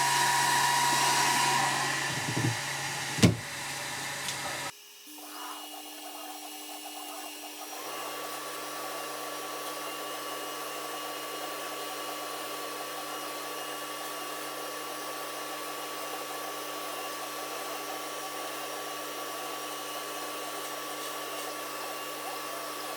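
Laser engraver running with its lid closed: a steady fan-like whir with a low hum. A loud airy rush in the first couple of seconds gives way to a sharp knock about three seconds in, then the sound drops suddenly and settles into a steady, quieter hum.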